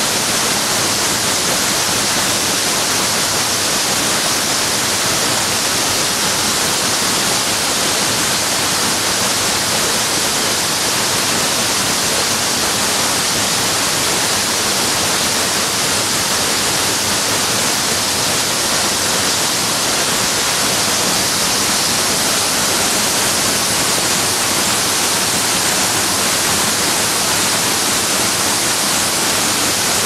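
Dzhur-Dzhur waterfall on the Ulu-Uzen river: water pouring down a rock face onto boulders in a steady, hissing rush.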